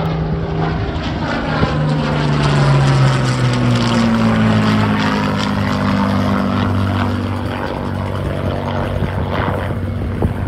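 Hawker Hurricane's Rolls-Royce Merlin V12 piston engine droning as the fighter flies low past, its pitch falling as it goes by, loudest about three seconds in.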